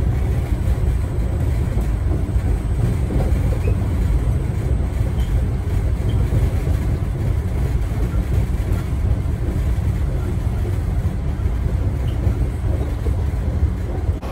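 Interior of an older MBTA Red Line subway car running along the track: a steady low rumble of the moving train.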